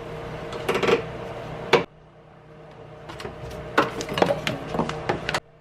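Hand tools clinking and knocking against metal in a car's engine bay, a scattered string of sharp clicks and clanks, the loudest about two seconds in, while the serpentine belt is being taken off.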